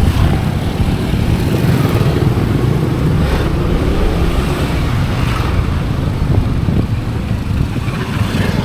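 A small motor vehicle's engine running steadily at an even speed, low-pitched, with some rushing noise over it.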